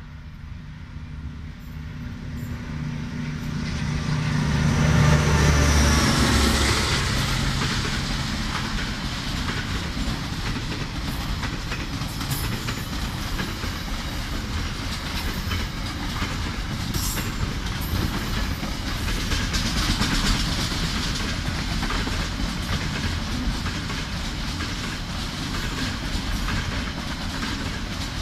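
A diesel-hauled container freight train passing close by: the locomotive's engine builds to its loudest about five seconds in as it goes past, then the steady rumble and clatter of container wagons rolling over the rails.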